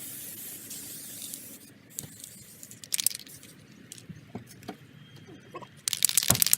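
Aerosol tyre-shine can spraying in a steady hiss, which stops about two seconds in. Scattered small clicks follow, then a short, louder burst of hiss near the end.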